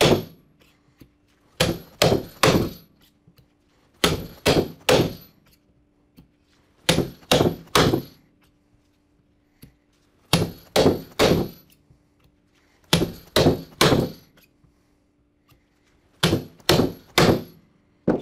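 Hammer blows driving Flexco BR rivets down through a guide block into the fastener plates and conveyor belt, the initial set of the rivets. The blows come in quick sets of three, six sets in all, each blow a sharp metallic clang.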